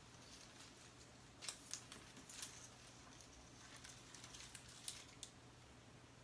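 Faint, scattered sharp clicks and light scratching of small hand work on the computer's parts, bunched between about one and five seconds in, over a low steady hum.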